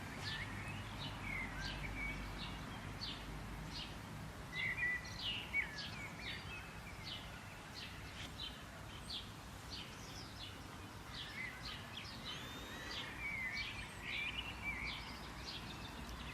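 Several songbirds chirping: short, high chirps repeated about twice a second, mixed with warbling, gliding phrases that are loudest about five seconds in, over a steady low background rumble.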